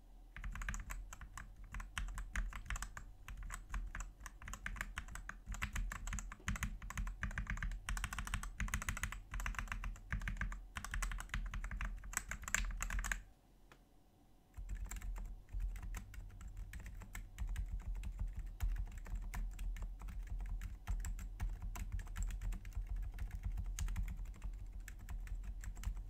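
Typing on a Feker IK75 gasket-mount mechanical keyboard fitted with Everglide Aqua King 62 g linear switches: a fast, dense patter of clacky keystrokes. After a pause of about a second near the middle, typing resumes on the same board with DUROCK Dolphin 62 g silent linear switches, whose keystrokes are duller, with less of the high clack.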